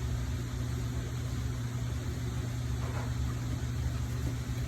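Steady low hum of a running appliance, even and unchanging, with a faint brief sound about three seconds in.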